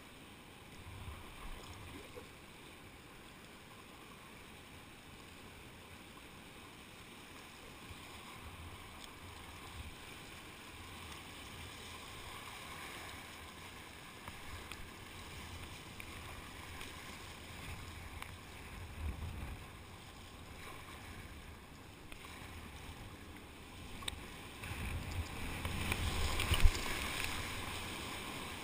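Rushing whitewater around a kayak, with paddle strokes splashing and knocking. It grows much louder over the last few seconds as the boat enters a big foaming rapid.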